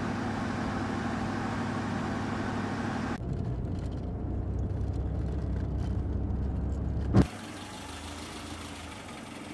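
An old sedan driving on the road: engine and tyres running steadily and close. About three seconds in the sound turns to a muffled low rumble, as heard inside the car's cabin. About seven seconds in a single sharp thump is followed by a quieter, steady street sound of the car passing.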